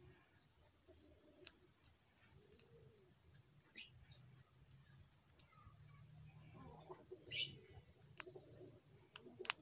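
Faint clicks and scrapes of plastic action-camera mount parts as a bolt is fitted through the interlocking mount fingers. A louder click-and-scrape comes about seven seconds in, and a sharp click just before the end.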